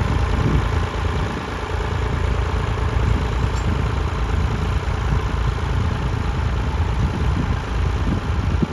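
Tractor engine running steadily, a continuous low rumble.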